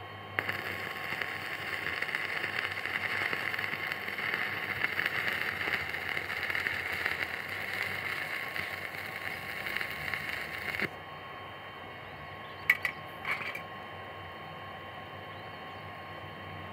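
Stick (MMA) welding arc from an AP Welding MMA-400 inverter welder: the arc strikes about half a second in, crackles and sizzles steadily while a bead is run for about ten seconds, then breaks off suddenly. A few sharp clicks follow a couple of seconds after the arc stops.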